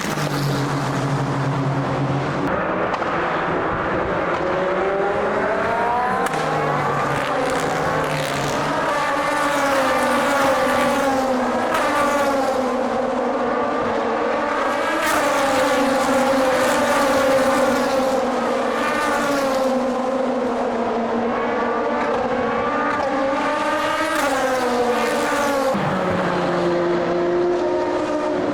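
Several endurance race cars under full throttle on the circuit, their engines overlapping. The pitch climbs through the gears again and again, each climb cut by an upshift, and one engine note drops sharply near the end as a car passes or lifts off.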